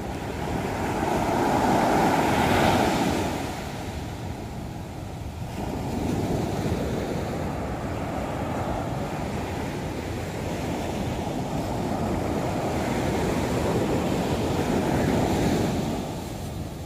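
Heavy sea surf breaking and washing up a sandy beach in slow surges, loudest about two seconds in, with wind buffeting the microphone.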